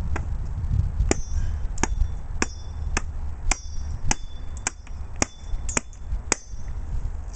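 Cold Steel Latin machete chopping a dry branch: about eleven sharp strikes, one every half second or so, each with a brief metallic ring from the blade, stopping a little after six seconds in.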